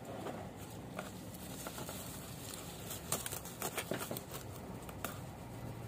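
Aglaonema leaves rustling and stems crackling as the plant is handled, with a run of sharp crackles about three to four and a half seconds in and one more near the end.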